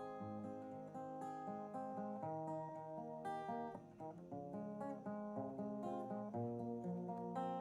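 Background music: acoustic guitar playing a plucked melody.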